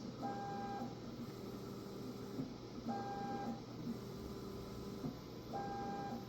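Creality K1 Max 3D printer running its auto-level self test: its stepper motors give three short, steady-pitched whines, about one every three seconds, with a lower motor hum and small clicks between the moves.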